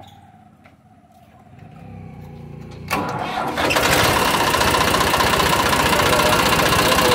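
Farmtrac 60 tractor's three-cylinder diesel engine with Bosch inline injection pump being started: it cranks, catches about three seconds in, and settles into a loud, steady run.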